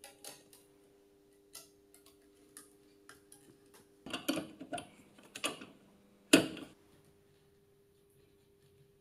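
Tennis racquet stringing machine at work: scattered sharp clicks and ticks from its clamp and ratchet mechanism and the string being handled, a quick run of them about four seconds in, and one sharp, loudest click a little past six seconds, over a faint steady hum.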